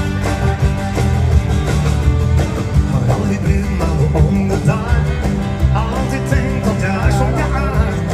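Live band playing a dance-band song on drums, bass, electric guitars and keyboard, with a man singing over it from about three seconds in.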